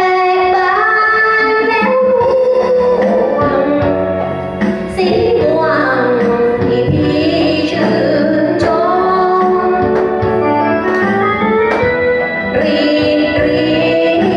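A woman singing into a microphone over backing music, holding long notes.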